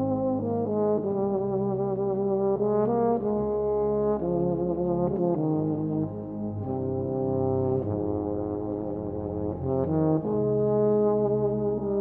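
Background music led by a brass instrument playing a melody of held notes, some with vibrato.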